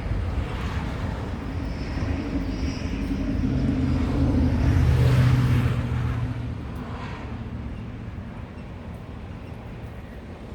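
A motor vehicle's engine passing, with a steady hum that swells to its loudest about five seconds in and then fades, over low wind rumble on the microphone.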